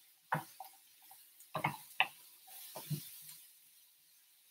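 Wooden spatula stirring diced raw sweet potatoes in a nonstick skillet, with a few light knocks and scrapes of the spatula against the pan.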